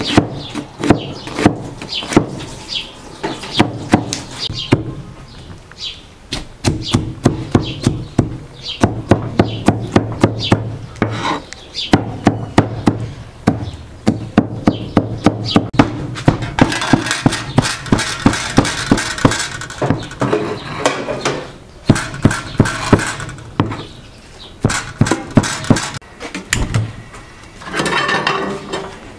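A heavy cleaver chopping meat and onion on a wooden board, in rapid repeated knocks, to mince them together by hand. About two thirds of the way in there is a longer rasping stretch, with a few more chops after it.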